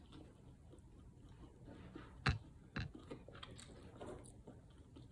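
Faint mouth sounds of a person chewing fried chicken, with two sharp clicks about half a second apart midway through.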